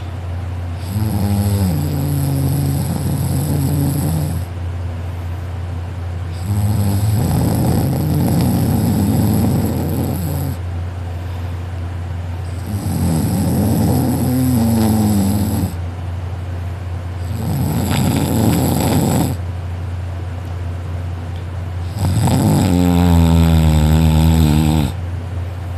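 A person snoring hard and loud: five long, rasping snores of two to four seconds each, about every five seconds, with quieter breaths between. A steady low hum runs underneath.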